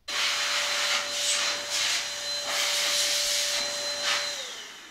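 Handheld electric dust blower running at full speed, blowing dust off a graphics card: a steady rush of air over a high motor whine. A little past four seconds in it is switched off, and the whine drops in pitch and fades as the motor spins down.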